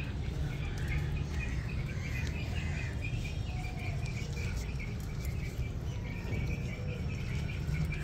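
Ducks feeding at bowls of feed and water, their bills making a quick, faint, repeated pattering over a steady low hum.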